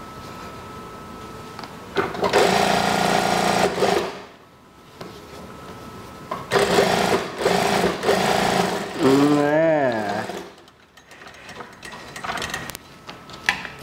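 Brother industrial single-needle sewing machine stitching a fabric binding strip along an edge, in two runs of about two seconds each with short pauses between.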